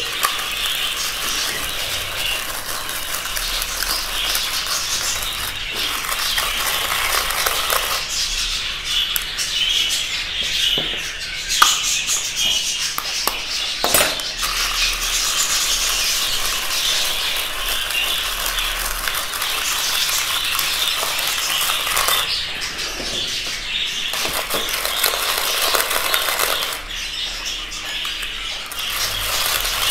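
A flock of budgerigars chattering and chirping steadily, over the rasp of a hand-cranked rotary grater shredding boiled eggs, with an occasional sharp knock.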